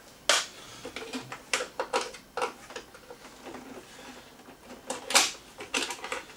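Irregular sharp clicks and taps of a screwdriver working small Phillips screws out of the plastic pull-start guide on a generator's metal case. The loudest clicks come about a third of a second in and about five seconds in.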